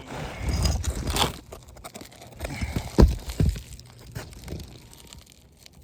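Asphalt roof shingles being worked and pried loose: irregular scraping and crunching, with a sharp crack about three seconds in.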